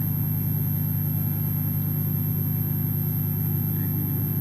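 Steady low electrical hum, a buzz with even low overtones that does not change, with no other sound over it.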